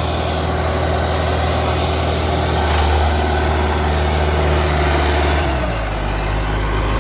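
Indo Farm 3055 DI tractor's diesel engine running steadily under load. About five and a half seconds in, its note drops lower.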